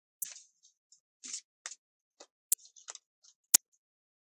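Tarot cards being shuffled by hand: a string of short swishes broken by three sharp snaps, the loudest about three and a half seconds in.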